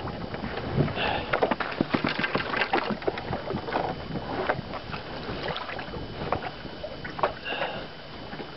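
Irregular clicks and knocks of handling in a small fishing boat over a steady hiss.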